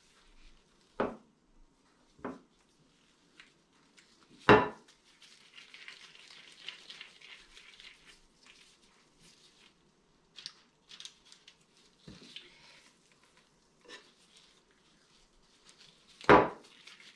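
Metal cookie scoop knocking and scraping against a ceramic mixing bowl while scooping stiff chocolate cookie dough: several sharp knocks, the loudest about four seconds in and near the end. Between them, soft rustling of gloved hands rolling the dough into balls.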